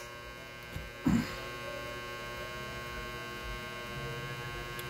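Steady electrical mains hum, with a brief louder noise about a second in and a faint click near the end.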